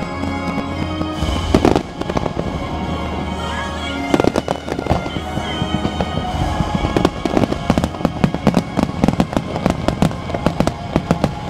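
A fireworks display bursting and crackling while music plays. The bangs and crackles come thick and fast in the second half, in a rapid barrage.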